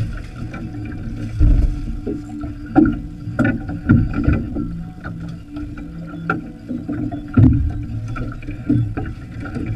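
Small fiberglass boat rocking on choppy water, with irregular knocks and thumps as the water slaps the hull, over a steady low hum.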